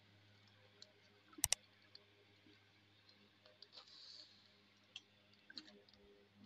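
Quiet kitchen handling: light ticks and clicks as cut potato pieces and peas are handled in a steel bowl and put into a metal kadai, with two sharp clicks close together about a second and a half in, over a faint steady hum.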